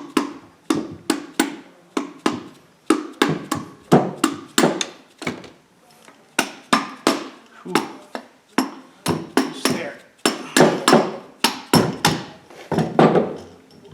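Hammer striking repeatedly, about three blows a second and somewhat uneven, driving a pressed-in part out of an air impact wrench.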